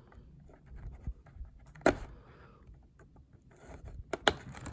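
Cardboard and paper packaging handled on a tabletop: soft rustling and scraping, with a sharp tap about two seconds in and a couple of quick clicks near the end.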